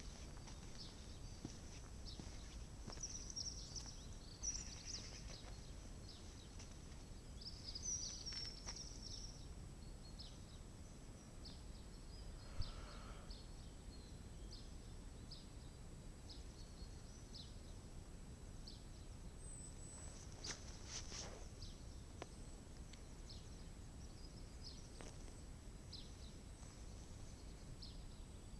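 Quiet outdoor ambience: a low, steady background rumble with scattered short, faint chirps of small birds. A single sharp click comes about twelve seconds in, and a brief louder rushing sound comes about twenty seconds in.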